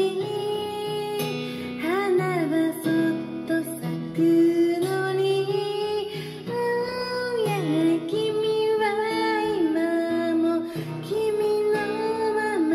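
Gentle acoustic guitar karaoke backing track with a female voice singing a slow melody over it, holding notes with a slight vibrato.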